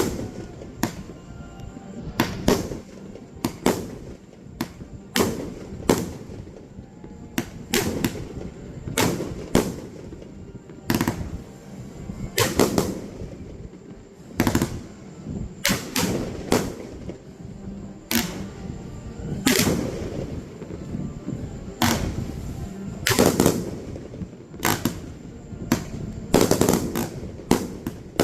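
Aerial fireworks shells bursting one after another, about one or two sharp bangs a second, each trailing off in a rumbling echo.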